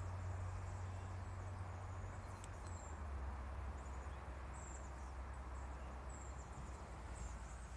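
Small birds chirping faintly outdoors: short, very high chirps about once a second, over a low steady hum.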